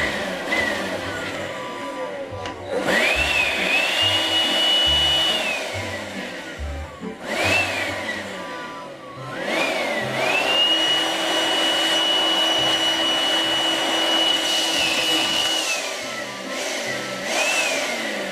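Makita UB182D 18V cordless blower triggered on and off several times: the motor's whine climbs quickly to a high steady pitch over a rush of air, holds for a few seconds at a time, then slides down as the trigger is released.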